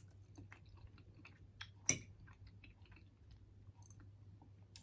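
Faint close-up chewing, with small mouth clicks and one sharper click about two seconds in.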